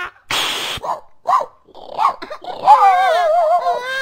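A voice actor imitating a dog: a breathy huff, a few short yips and barks, then a long wavering whine.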